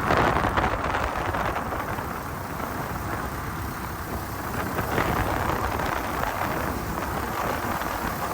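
Wind rushing over the microphone and road noise from a moving motorcycle, a steady low rumble with no clear engine note.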